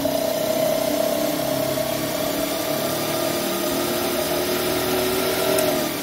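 Diesel air heater's blower fan running through a start attempt: a steady motor whine with a second, lower tone that slowly climbs, then drops away near the end as the fan slows. The start attempt is with a new glow plug and burner mesh, and it does not take.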